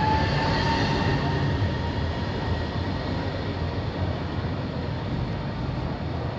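A rail vehicle running past, a steady rumbling noise with a faint thin whine from the wheels or motor that fades out in the first couple of seconds.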